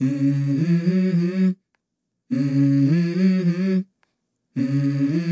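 Background music: a wordless vocal intro with no instruments. There are three phrases of about a second and a half each, separated by short silences, and the third begins near the end.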